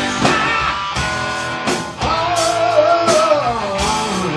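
A live rock band playing electric guitars, bass and drum kit. About halfway through, a long held, wavering note bends downward.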